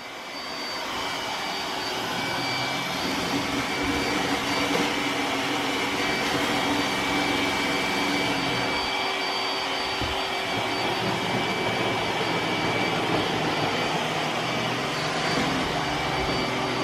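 iRobot Roomba s9+ robot vacuum running: a steady rush of suction with a thin high whine, growing a little louder over the first couple of seconds and then holding level.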